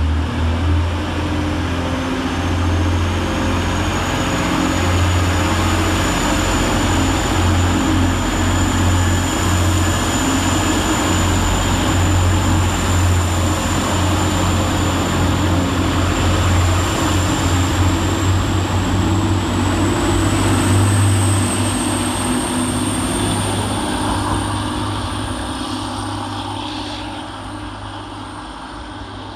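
Two coupled Class 185 Desiro diesel multiple units pulling away under power: the engines drone steadily, with a thin high whine that slowly climbs in pitch. The sound fades over the last few seconds as the train draws away.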